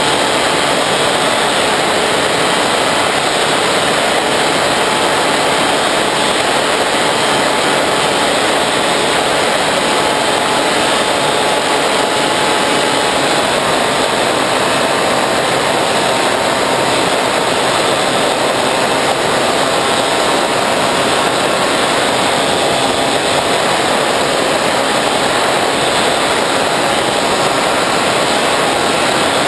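Bixler 3 RC plane in flight, heard from the GoPro mounted on it: its electric pusher motor and propeller whirring with heavy wind rush over the camera, steady throughout.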